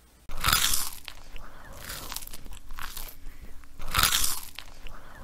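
Cartoon eating sound effect of a hash brownie being bitten and chewed: loud crunching bites about once a second, with chewing in between. The loudest bite comes near the end.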